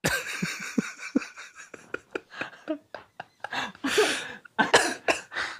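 Two men laughing hard in breathless, wheezing fits, with short gasps and coughing breaths between.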